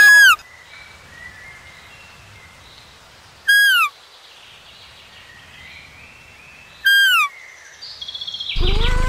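An animal call repeated three times, evenly spaced: each a short, loud, high cry that slides downward in pitch. Near the end a louder sound with a low hum cuts in.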